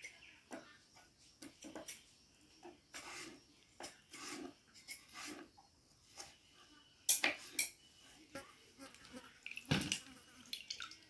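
Kitchen knife slicing a raw peeled potato into fry-sized sticks on a wooden chopping board: irregular taps of the blade cutting through onto the board, with a few sharper knocks in the second half.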